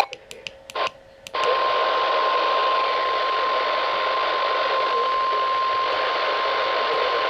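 NOAA Weather Radio warning alarm tone: a single steady tone near 1 kHz over radio static. It starts about a second and a half in, after a few short clicks, and signals an incoming tornado warning.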